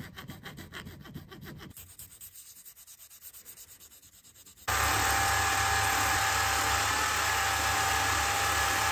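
Quick back-and-forth rubbing strokes of an abrasive stick and then sandpaper on a small black knob held in a vise, growing fainter. Just past halfway a polishing machine's cloth buffing wheel cuts in, loud and steady with a hum and a whine, as the knob is pressed against it, then stops abruptly near the end.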